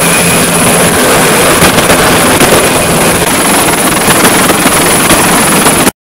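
Large helicopter flying close by: rotor and turbine engines running loud and steady, with a thin high whine held throughout. It cuts off abruptly just before the end.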